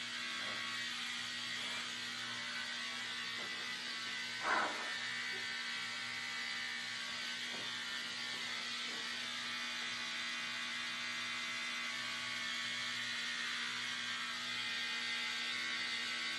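Electric hair clippers running with a steady buzzing hum while shaving hair off a head, with one brief louder sound about four and a half seconds in.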